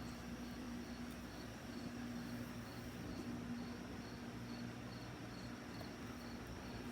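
Quiet room tone: a low steady hum with a faint high-pitched chirp repeating about twice a second, like a cricket.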